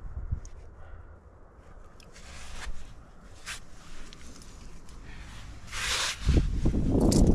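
Short scrapes and rustles of a climber's gear and clothing against rock, a few separate strokes, with the loudest about six seconds in; a voice starts just before the end.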